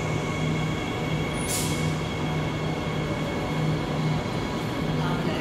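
Transperth electric suburban train moving slowly alongside the platform: a steady low motor hum with a thin electric whine above it. About a second and a half in comes a short hiss of air.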